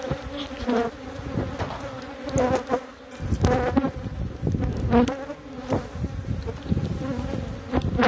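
Swarm of honeybees buzzing steadily around an opened hive, with louder swells every second or so as single bees fly close by.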